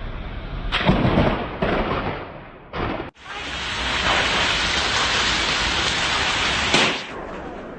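Thunderstorm: thunder cracking and rumbling over heavy rain. The sound cuts out for an instant about three seconds in, then comes back as a long, steady loud rush that ends in a sharp crack near the end.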